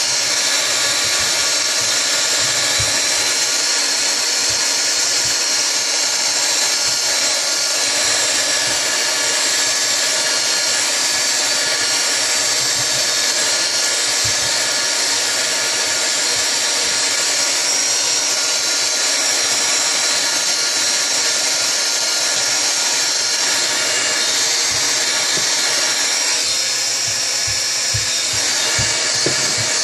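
Handheld heat gun running steadily on its high setting: a constant fan whine over an even blowing hiss.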